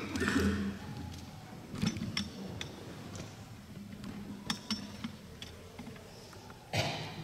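Quiet hall with scattered light clicks and knocks from people moving about, and a short burst of rustling noise near the end.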